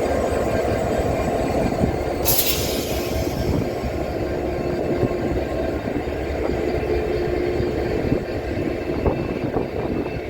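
Class 69 diesel-electric locomotive idling at a standstill, its EMD 710 engine giving a steady low rumble. A short burst of air hiss comes about two seconds in.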